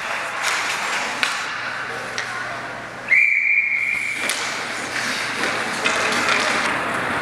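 A referee's whistle, blown once about three seconds in as one steady high blast lasting just over a second, over continuous rink noise with scattered sharp clacks.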